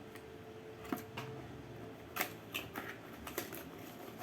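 Packaging and a small plastic item handled during unboxing: a few short, sharp clicks and crinkles, with a pause between clusters.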